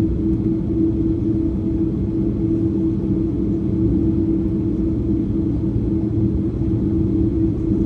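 Airbus A330 airliner in flight, heard inside the cabin: a steady low drone of engines and airflow with an even hum through it.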